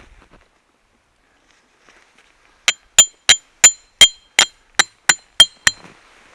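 Hammer driving a metal tent peg: about ten sharp, ringing metallic strikes, roughly three a second, starting a little under three seconds in.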